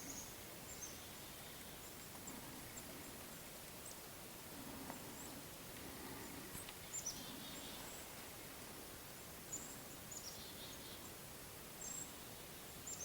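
Quiet woodland ambience: a faint steady hiss with scattered short, high bird chirps through it.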